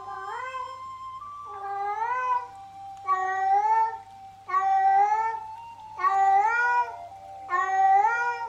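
Domestic cat meowing over and over: six meows about a second and a half apart, each sliding up in pitch. A faint steady tone, likely music, runs underneath.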